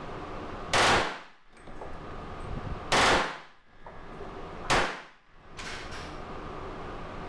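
Glock 22 .40 S&W pistol converted to full-auto, fired in three short, very loud bursts about two seconds apart, each ringing on in the echo of an indoor range.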